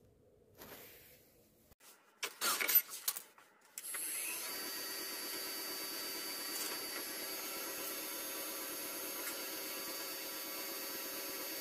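A few knocks and clatter about two seconds in, then a woodturning lathe starts at about four seconds and runs steadily with a constant motor whine, turning a brass bar in its chuck.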